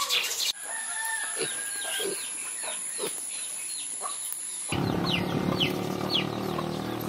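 Village yard ambience: chickens clucking and peeping in short, repeated falling chirps over a steady high insect drone. About two thirds of the way in, the drone stops and a steady low hum comes in under the chirping.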